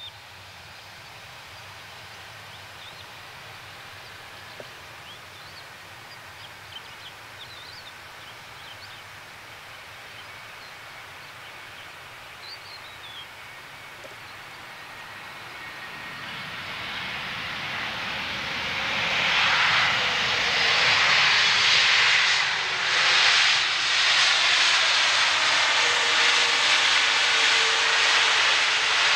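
Airbus A321neo jet airliner landing. Its engine noise is faint at first, then grows over several seconds into a loud, steady rush as it touches down and rolls out along the runway with its spoilers raised.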